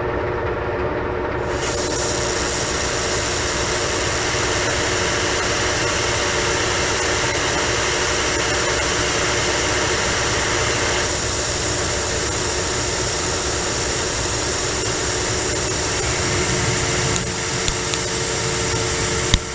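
Metal lathe running steadily with its spindle turning; a steady hiss joins about a second and a half in. Near the end the turning tool starts cutting, adding a steady tone and a few sharp ticks.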